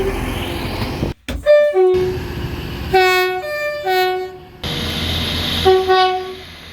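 Locomotive horn blowing four short blasts, each a chord of several notes sounding together, after about a second of passing-train rumble and a brief drop-out.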